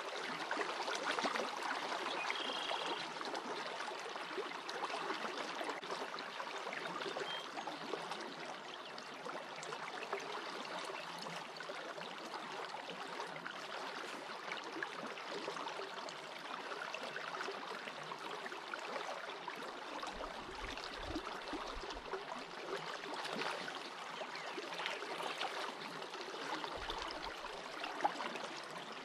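Shallow creek water running steadily over a stony riffle.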